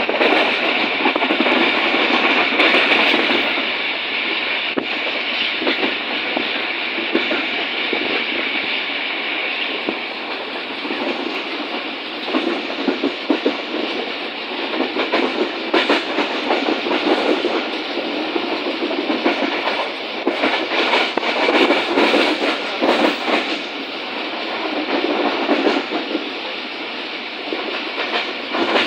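Passenger train running at speed, heard from inside the coach by the window: a steady rush and rumble of wheels on rails, with runs of clickety-clack as the wheels pass over rail joints now and then.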